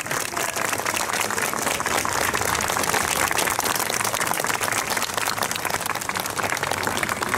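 A crowd applauding, many hands clapping steadily without a break.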